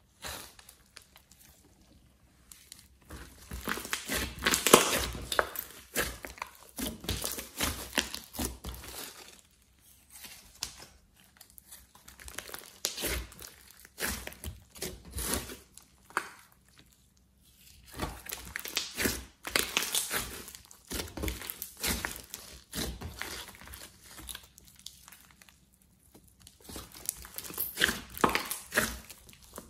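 Hands kneading, stretching and pressing down on a large lump of mixed slime. The sound comes in irregular spells separated by short quiet pauses, and is loudest about five seconds in and again near the end.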